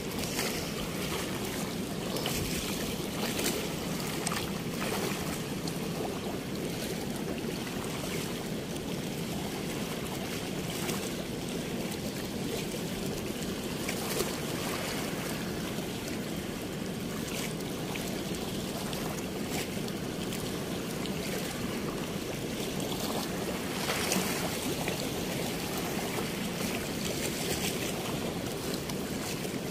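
Steady rush of water pouring through a sluice gate or weir, with a few brief splashes.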